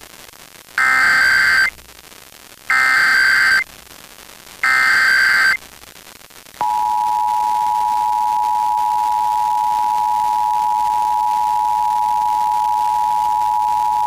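Emergency Alert System broadcast tones. First come three one-second bursts of buzzy digital SAME header data, evenly spaced. About six and a half seconds in, the steady two-tone EAS attention signal (853 and 960 Hz together) starts and holds. Together they mark the opening of an EAS Required Monthly Test.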